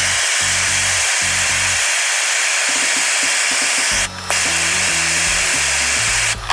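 MAP gas torch flame hissing steadily as it heats a steel shrink-fit tool holder to expand it and release the carbide end mill, briefly interrupted about four seconds in. Background music plays underneath.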